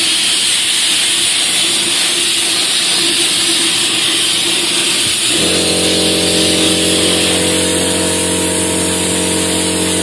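Air spray gun spraying primer with a loud, steady hiss. About halfway through, a steady mechanical hum starts under it and holds.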